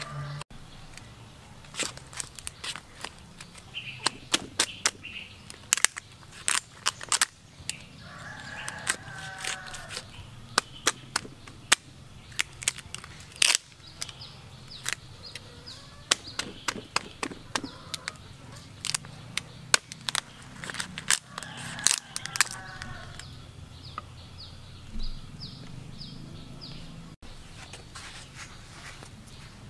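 Large kitchen knife chopping through a cooked lobster's shell onto a wooden cutting board: a long run of irregular sharp cracks and knocks that stops about three-quarters of the way through. Chickens and small birds call in the background.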